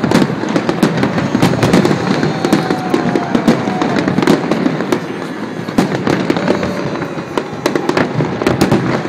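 Aerial firework shells bursting overhead in rapid succession: a dense run of sharp bangs and crackles, many a second, easing slightly past the middle before picking up again.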